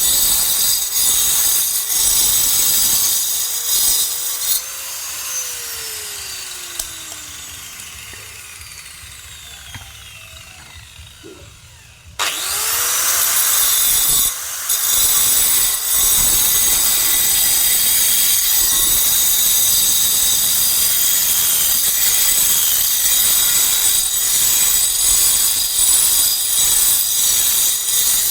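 Electric power tool cutting or grinding stone for a stone mortar, a loud, high-pitched noise. About four seconds in it is switched off and winds down with a falling whine, and about twelve seconds in it starts again suddenly and runs steadily on.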